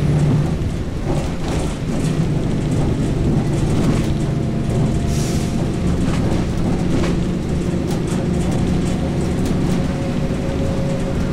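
Overland truck driving along a road, heard from inside: a steady engine hum and road rumble, with scattered rattles of the body and windows and a brief hiss about halfway through.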